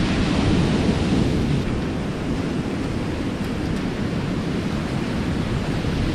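Ocean surf breaking on a rocky shore, heard as a steady low rumble with wind blowing over the microphone, a little louder in the first second or so.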